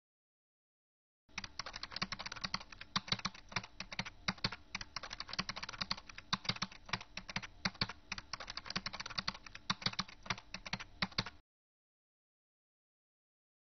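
Typing sound effect: a rapid, uneven run of key clicks that starts about a second in and stops abruptly a couple of seconds before the end, with dead silence on either side.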